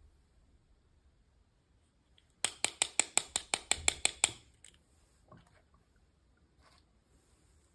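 A quick run of sharp clicks, about seven a second for two seconds starting a couple of seconds in, then a few scattered softer clicks: small plastic toy packaging being handled.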